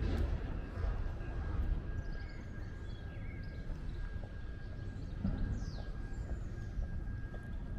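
Outdoor city-street ambience: a steady low background rumble with a faint steady whine, and scattered short bird chirps high above it, one falling sweep about five seconds in.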